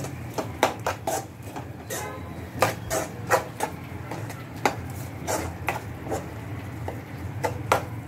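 Spoon knocking and scraping against a cooking pan as chopped vegetables are stirred, in irregular clinks a few times a second, over a low steady hum.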